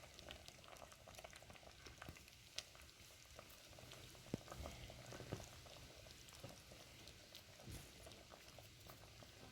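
Faint bubbling of a pot of brown stew chicken feet simmering, with scattered soft pops over a low hiss.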